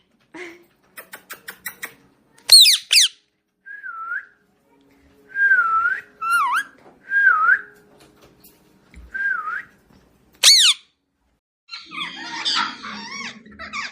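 Pet parrot vocalising: a quick run of clicks, sharp descending screeches, and a series of short whistled notes that each dip and come back up in pitch, turning into a burst of chattering near the end.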